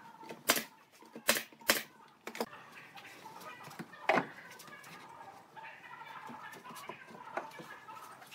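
Several sharp knocks: three close together in the first two seconds and a louder one about four seconds in, over faint, broken pitched sounds.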